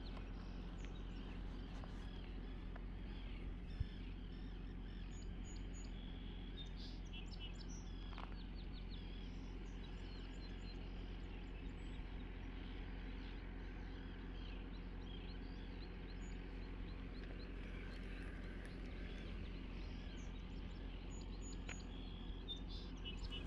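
Small birds chirping here and there over a steady low hum of outdoor background noise.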